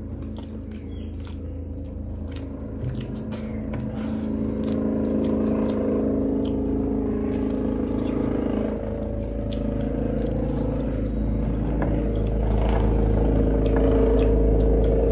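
Airplane engines overhead as the aircraft comes in to land, a steady low drone that grows gradually louder. Small clicks and scrapes of hand-eating and chewing sound over it.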